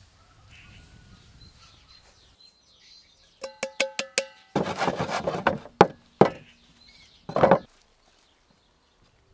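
About five quick ringing taps on a metal enamel bowl, knocking the last sugar out of it over strawberries in a cast-iron pan. Then a rustling rush of sugar, and several sharp knocks and clatters of cookware, the loudest a little past the middle.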